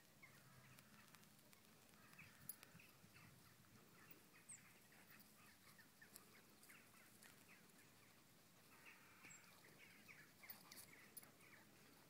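Near silence: faint open-air ambience with faint, short high chirps, clustered a couple of seconds in and again after about nine seconds.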